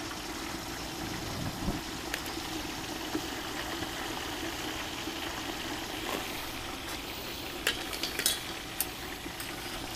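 Whole turkey deep-frying in hot oil in a propane turkey fryer pot: a steady bubbling sizzle. A few sharp clicks come near the end.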